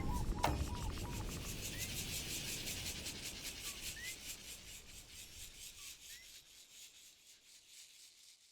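A fast, evenly pulsing high rasping noise, with a few faint short chirps, that slowly fades out; heavy bass music cuts off about half a second in.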